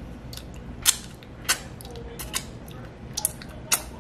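A person chewing with wet lip smacks and mouth clicks while eating sauce-covered meat with his fingers: about seven short, sharp smacks, a few of them in quick pairs.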